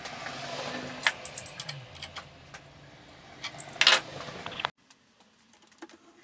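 Sharp metallic clinks and knocks of aluminium blocks being handled in a milling-machine vise, the loudest cluster a little before the end. About three-quarters through, the sound drops abruptly to faint room tone with a few light ticks.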